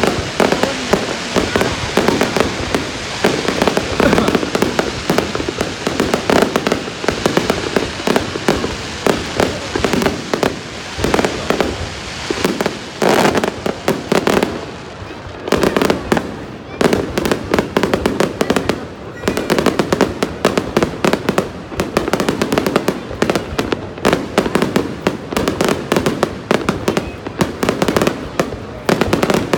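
Aerial fireworks display: shells bursting overhead in dense, rapid crackling and popping, with a brief lull about halfway through.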